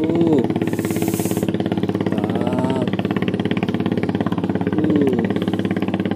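A small engine running steadily with a fast, even pulse, with a few short rising-and-falling tones over it, about every two seconds.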